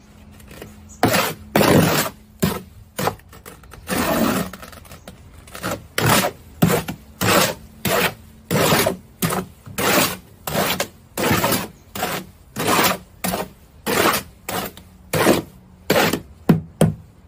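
Shovel blade scraping along the bottom of a steel wheelbarrow as it turns a sand mix, in repeated strokes about one and a half a second, starting about a second in.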